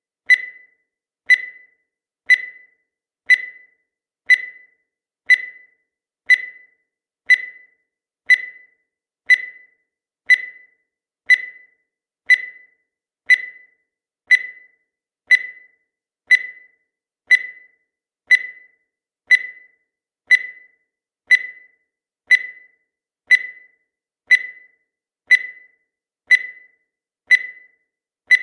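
Countdown timer sound effect: a short, sharp tick repeated once every second, each one dying away quickly.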